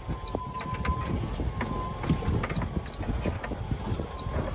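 Wind buffeting the microphone on an open boat, with scattered small clicks and knocks as a crab pot is hauled up by hand on its line.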